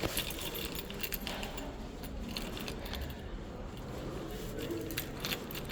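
Small metal objects clinking and jangling: a quick scatter of sharp light clicks, some close together.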